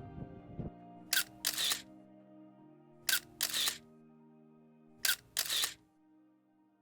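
Camera shutter firing three times, about two seconds apart, each a quick double click, over soft background music that fades away.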